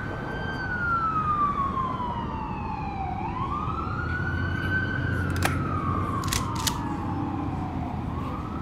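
Siren wailing in a slow rise and fall of pitch, about one cycle every five seconds, over a low steady rumble. A few short sharp clicks come a little past halfway.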